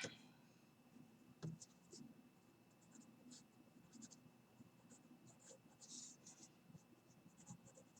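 Faint pencil strokes scratching on paper: a series of short, separate strokes, with a slightly louder tick about one and a half seconds in.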